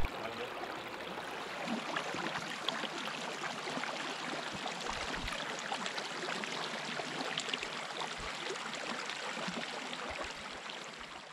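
Small spring-fed creek trickling and gurgling steadily, fading out near the end.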